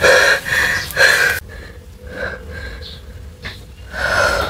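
A young woman gasping and whimpering in distress, loud for about a second and a half and then dropping away. Near the end comes a short pained whimper.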